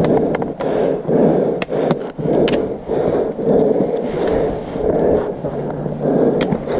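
Hiker's footsteps scuffing over rocks and dry leaves in a steady walking rhythm, with several sharp clicks of trekking-pole tips striking rock.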